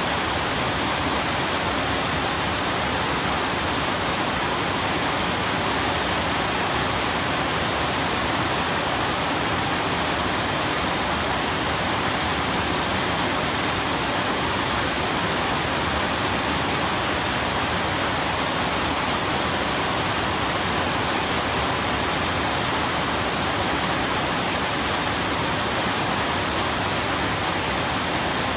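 Steady, even rain noise with no distinct drops, thunder or breaks.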